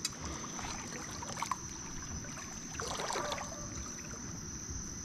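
Shallow water sloshing, with a few light splashes about one and a half and three seconds in, from wading. Under it runs a steady high-pitched insect trill.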